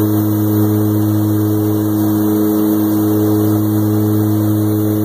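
Steady aircraft engine drone heard from inside the cabin: a low hum with several steady tones stacked above it over a constant rushing noise, unchanging throughout.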